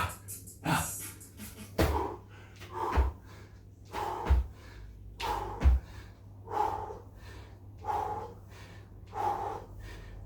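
A man breathing hard during exercise, with a forceful exhalation about every second and a bit. Under the first few breaths come dull thumps; the later breaths come without them.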